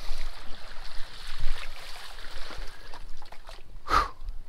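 Water trickling and splashing from paddle strokes and the stand-up paddleboard's bow cutting through a calm mangrove channel, with one short, louder noise about four seconds in as the board reaches the muddy bank.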